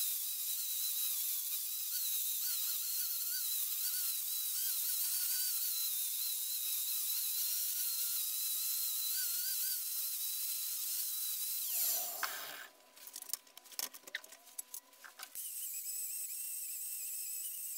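Angle grinder with a steel wire wheel scrubbing rust off a steel anvil: a steady rushing noise with a high whine that wavers in pitch as the wheel is pressed and moved. About twelve seconds in the sound drops away for roughly three seconds, then the wire wheel comes back on with a steadier whine.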